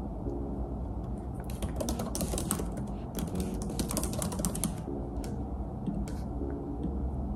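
Typing on a laptop keyboard: a quick run of key clicks in the middle, then scattered single keystrokes, over a low steady hum.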